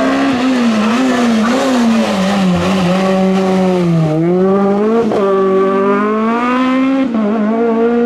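Race-prepared Volkswagen Golf Mk1 hillclimb car's engine revving hard through a hairpin. The pitch wavers and sinks as it slows, then jumps back up about four seconds in. A single sharp crack follows a second later, and the note climbs steadily as it accelerates away, dipping briefly once near the end before rising again.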